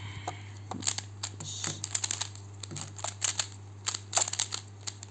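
FanXin Pyraminx puzzle being turned by hand in a scramble: irregular clicking and clacking of its plastic pieces as the layers and tips are twisted, over a steady low hum.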